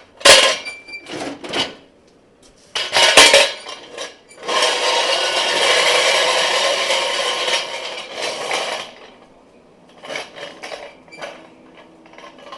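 Metal wheel dollies being handled in a garage: two sharp metal clanks, then a rasping noise lasting about four seconds, followed by a few lighter knocks.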